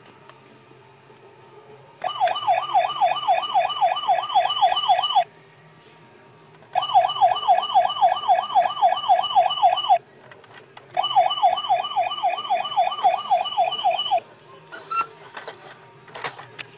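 Electronic siren of a Tesco preschool pull-back police car toy sounding three times, each a fast warbling wail of about three seconds with short gaps between. A few faint clicks follow near the end.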